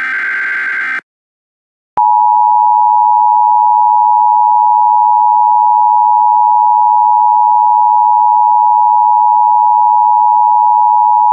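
An Emergency Alert System SAME header data burst, a rapid warbling digital squeal, cuts off about a second in. A second later the EAS two-tone attention signal starts, a loud steady dual tone that holds unchanged to the end, announcing an emergency alert message.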